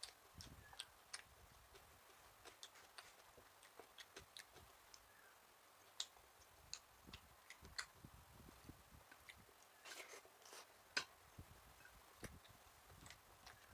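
Faint eating sounds: a person chewing with the mouth, with scattered small clicks and smacks, the sharpest about six and eleven seconds in.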